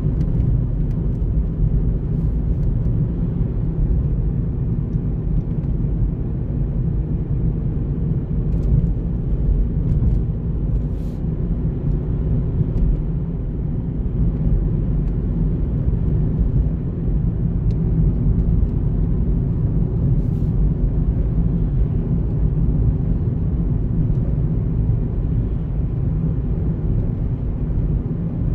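Steady low rumble of a car driving on city streets, road and engine noise without pauses.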